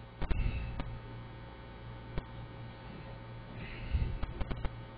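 Steady low electrical mains hum, with scattered single clicks and a quick run of clicks about four seconds in: computer keyboard keys and mouse buttons.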